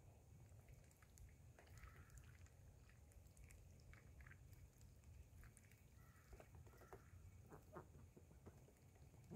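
Faint sounds of Cayuga ducks foraging: soft clicking and nibbling of bills in the grass, with a few quiet calls, over a low rumble.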